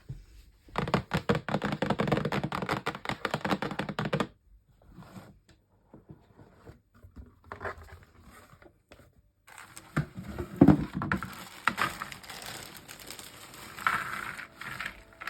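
Jigsaw puzzle pieces clattering as they are handled: a dense, rapid rattle of many pieces for about three seconds, then scattered single clicks, then more shuffling and rustling clicks in the second half.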